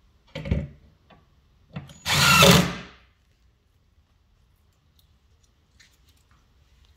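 Cordless drill driving screws into a wooden cabinet: a short burst about half a second in, then a longer, louder run of about a second, followed by a few faint clicks.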